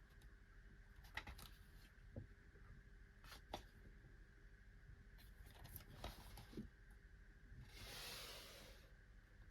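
Faint handling sounds of DVD cases and packaging: a few light clicks and taps spread out, and a short rustle about eight seconds in.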